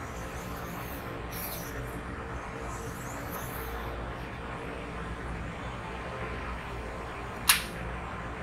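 Steel knife blade stroked by hand across a wet whetstone: soft, faint scraping strokes over a steady background hum, then a single sharp click near the end.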